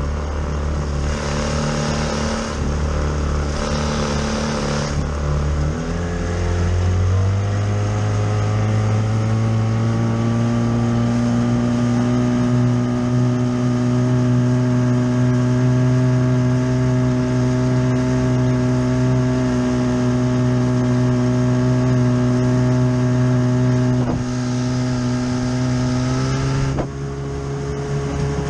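Mercury Mark 28 two-stroke outboard driving a small hydroplane: the engine runs at a lower speed, then climbs steadily in pitch over several seconds and holds a high, steady note, easing a little near the end. A rushing hiss of wind and spray comes and goes over it.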